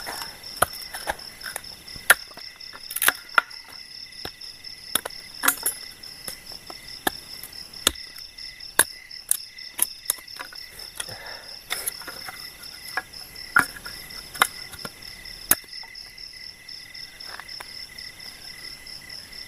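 A machete chopping at a piece of wood, irregular sharp knocks at uneven intervals that stop about three-quarters of the way through. Crickets chirp steadily throughout.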